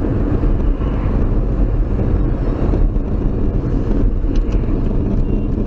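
Steady low rumble of a car on the move, engine and tyre noise heard from inside the cabin.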